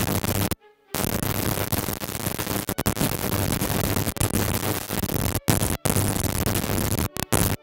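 Loud, even static hiss in place of the ballet music, with no music heard through it. It cuts off abruptly to silence for a moment about half a second in, and several times briefly near the end.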